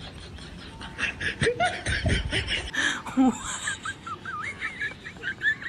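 People laughing in loud bursts, starting about a second in. In the second half there is a run of high, wavering squeaks.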